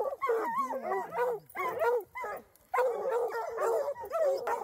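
Several hunting hounds baying together, their overlapping calls rising and falling. The baying drops out briefly about halfway through, then resumes.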